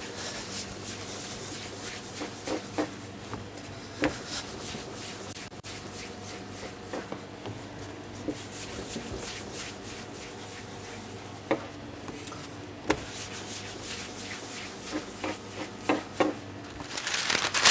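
Hands rolling dough pieces into balls on a floured wooden bench: a soft, continuous rubbing with light taps of dough on the wood now and then, over a steady machine hum. A louder rustle comes near the end.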